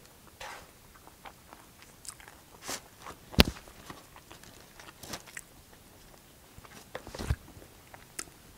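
Eating sounds close to the microphone: a plastic fork picking at cali fries in a styrofoam takeout container, with chewing and mouth sounds. Scattered soft clicks and rustles, the sharpest click about three and a half seconds in and another strong one near seven seconds.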